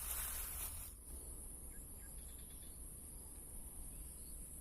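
Steady high-pitched insect drone. A burst of rustling noise in the first second stops suddenly.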